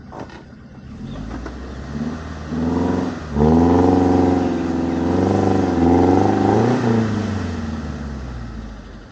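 Off-road 4x4's engine revving up about a second in and held at high revs for several seconds as the vehicle works through an obstacle, the pitch wavering, then easing off near the end.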